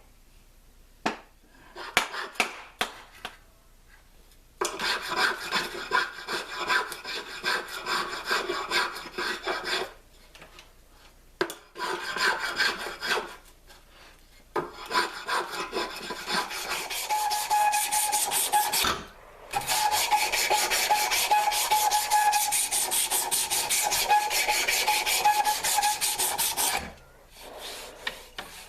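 Wood rasp scraping along a maple hammer handle as it is shaped by hand: a few light taps, then several long bouts of fast back-and-forth strokes with short pauses between them.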